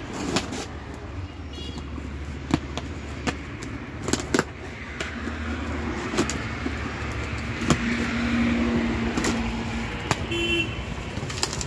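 A knife slitting the packing tape along the seams of a corrugated cardboard carton, with sharp irregular clicks and crackles of tape and cardboard, over a steady low rumble in the background.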